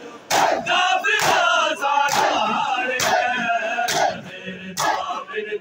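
Crowd of mourners doing matam, striking their chests together in a steady beat of six strikes about one a second. Men's voices chant and shout between the strikes.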